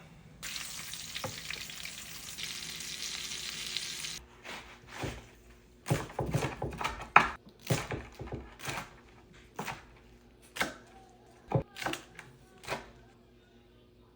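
Martabak telur (egg roll wrappers around a beef and egg filling) frying in hot oil, a steady sizzle that cuts off suddenly after about four seconds. Then a run of sharp knocks and taps of a utensil against the pan, closest together around the middle and thinning out towards the end.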